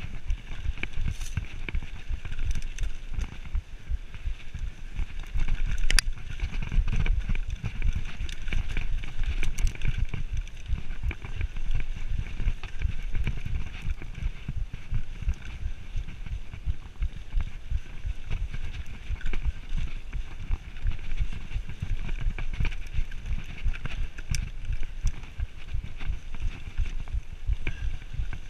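Mountain bike riding fast down a dirt singletrack: the tyres rumble over the rough ground and the bike rattles and clatters over bumps, with one sharp click about six seconds in.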